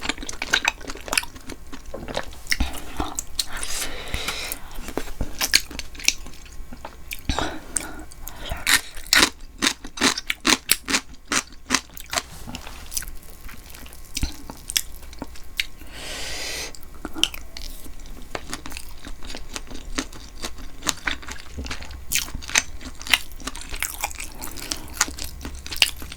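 Close-miked eating: wet chewing and mouth smacks of someone eating chewy rice-cake tteokbokki with beef tripe, with frequent sharp clicks, thickest about ten seconds in.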